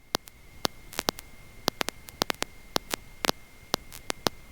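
Irregular electrical clicks and crackles over a faint steady high whine and hiss: static on the aircraft's intercom audio line with no one talking. No engine is heard.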